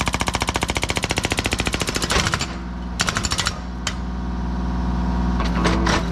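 Hydraulic breaker hammer on a Kubota mini excavator pounding a boulder with rapid, evenly spaced blows, breaking up the rock. The blows stop about two seconds in, come back in a short burst about a second later, and the excavator's diesel engine runs steadily between.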